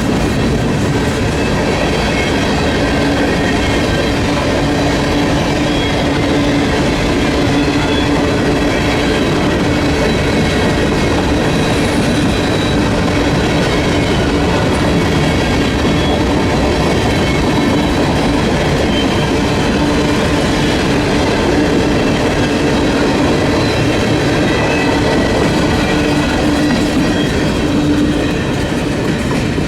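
Union Pacific freight train's cars rolling steadily past, the wheels running loud on the rails, with faint steady high-pitched whines from the wheels.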